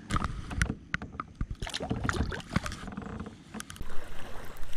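Irregular knocks and clunks on a plastic sit-on-top fishing kayak as the paddle and gear are handled, with water moving against the hull.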